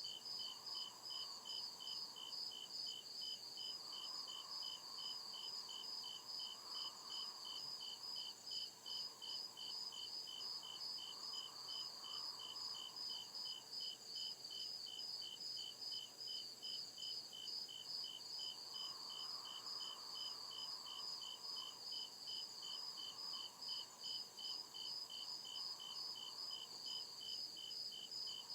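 Crickets chirping in a steady, evenly spaced pulse of high chirps. A fainter, lower hum swells and fades in the background.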